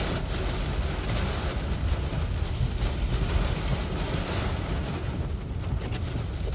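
Hurricane-force eyewall winds of Hurricane Ida blowing hard and buffeting the microphone: a loud, gusty rushing noise with a heavy low rumble.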